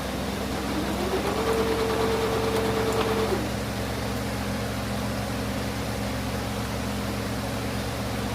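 Electric fan running with a steady hum. About a second in, a sewing machine motor whine rises in pitch, holds steady for about two seconds, then drops away as it stops stitching.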